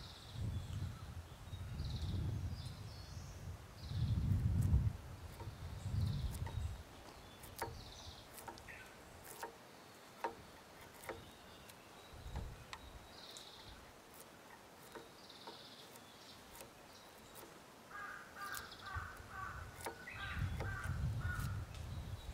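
Hand tools working a chestnut beam, with sharp clicks and taps clustered in the middle. Birds call throughout, with a run of repeated calls near the end, and low rumbles come and go at the start and end.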